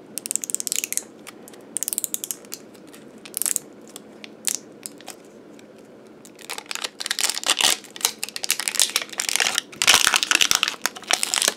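Plastic wrapping of an L.O.L. Surprise ball being peeled off by hand, crackling and crinkling in short spells, then more busily over the second half.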